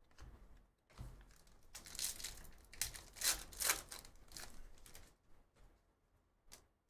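Foil wrapper of a Panini Phoenix football trading-card pack crinkling and tearing as it is ripped open by hand, in irregular bursts that are busiest in the middle.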